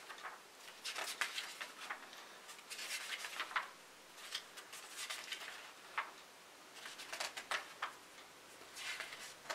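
Pages of a large paper instruction manual flipped by hand: soft paper rustles and flicks, irregular, roughly one every second or so.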